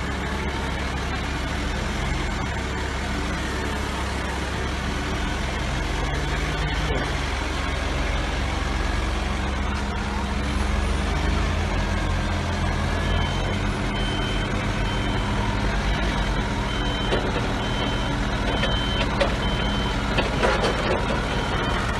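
Forklift truck engine running steadily while it works. From a little past halfway its reversing alarm sounds, a high beep repeating about three times every two seconds.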